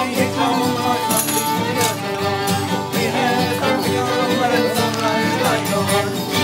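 Live acoustic folk band playing: fiddle and acoustic guitars together in a steady strummed tune, with a man singing.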